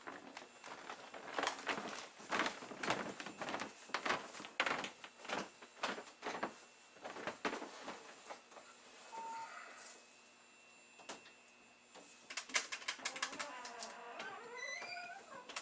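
Computer keyboard typing: irregular clicks for several seconds, a pause of a few seconds in the middle, then fast typing again. Faint squeaks that slide in pitch near the end.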